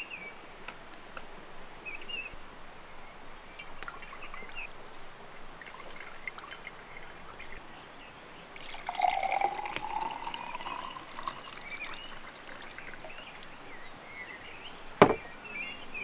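Juice poured from a pitcher into a drinking glass, the pouring sound rising in pitch for about two seconds as the glass fills. A single sharp knock near the end, with faint bird chirps throughout.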